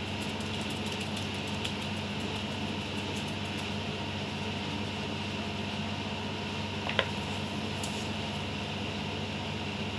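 A steady machine hum, like a fan or appliance motor, with faint light ticking in the first few seconds as a fine mesh strainer of flour is shaken over a bowl, and one sharp click about seven seconds in.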